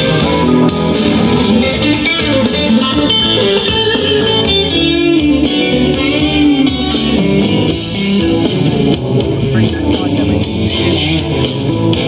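JBL Boombox Bluetooth speaker playing a blues track at full volume in its outdoor mode: electric guitar and bass over a steady drum beat.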